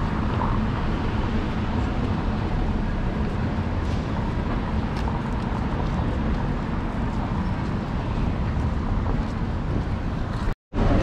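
Busy city street ambience: a steady rumble of traffic and outdoor bustle. The sound drops out completely for a moment near the end.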